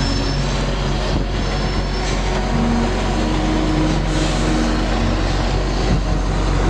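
Diesel engines of fire trucks running in a procession: a steady deep rumble with engine tones that shift in pitch.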